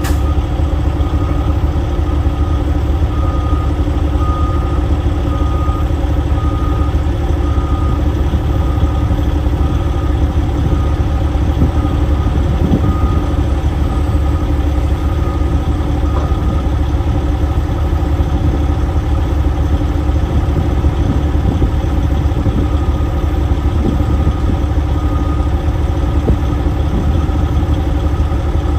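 Heavy diesel engine running steadily at idle, with a wheel loader's backup alarm beeping over it in a steady repeated rhythm.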